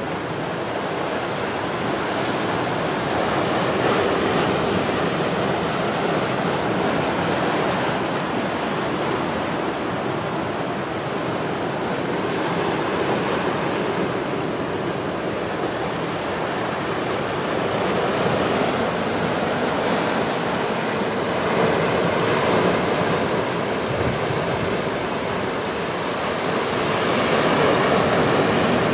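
Ocean surf breaking on a rocky shore after a storm: a steady rushing wash that swells and eases every several seconds, loudest near the end.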